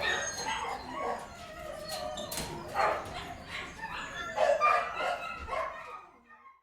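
Several dogs in an indoor kennel barking, yipping and whining over one another, with clicks and rattles of dogs scratching at the kennel gates. The sound fades out near the end.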